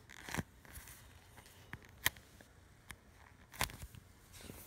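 Faint handling noise as a foam squishy toy is squeezed and turned in the fingers close to the microphone, with three short sharp clicks, the loudest about two seconds in.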